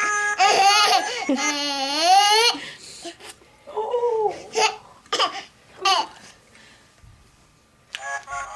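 SingAMaJig plush singing toys singing in high, wavering voices, with a baby laughing and babbling and a few short sharp vocal sounds in the middle. It goes quiet for about a second before the singing starts again near the end.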